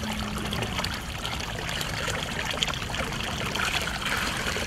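Water sloshing and trickling as a white tiger wades through a pool.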